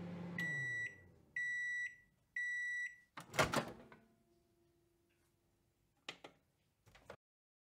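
Microwave oven ending its cycle. The running hum winds down, and three evenly spaced beeps signal that it is done. About three seconds in, the door opens with a loud clunk, and two light clicks follow near the end.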